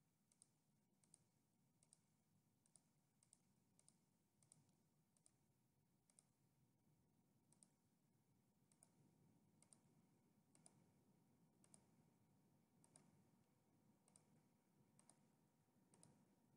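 Faint computer mouse clicks, about twenty single clicks spaced irregularly, roughly one a second, over near silence.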